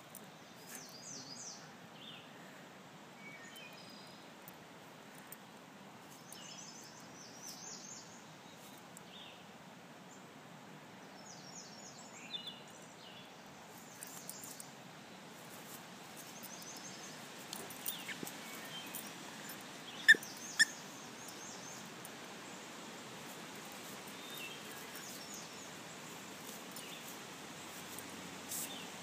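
A Gordon Setter mouthing squeaky rubber balls on grass, the balls squeaking now and then, loudest in two sharp squeaks about two-thirds of the way through, over a steady outdoor hiss with birds chirping.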